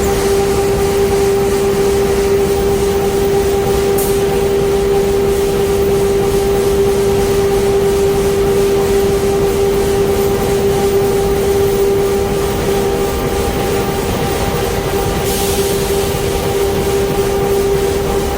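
Corrugated-cardboard automation line machinery running, with a steady mechanical drone and a constant mid-pitched hum. There is a single click about four seconds in and a short hiss lasting about a second near the end.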